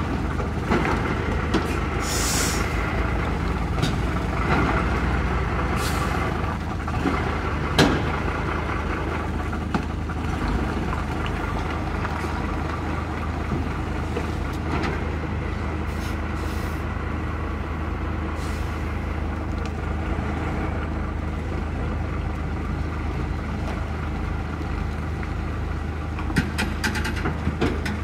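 Diesel engine of an articulated lorry's tractor unit running steadily as it slowly pulls a heavy fairground ride trailer across mud. A short burst of air hiss from the air brakes comes about two seconds in, and a single knock about eight seconds in.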